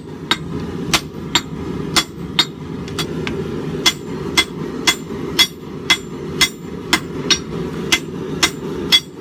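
Six-pound hammer striking a red-hot 1.5-inch square mild steel bar on an anvil, drawing out a taper, at a steady rhythm of about two blows a second, each blow ringing briefly. A steady low rumble runs underneath.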